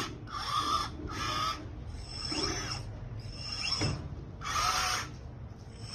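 Radio-controlled LESU tracked skid steer loader model working its bucket and tracks: a string of short whining bursts, each about half a second long, as the arms lift and the bucket tilts. A few quick rising whines come in as it drives and turns.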